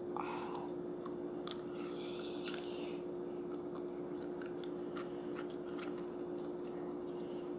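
Small crinkling and clicking handling noises, scattered and irregular, over a steady hum, with the busiest crinkling in the first second and again about two to three seconds in.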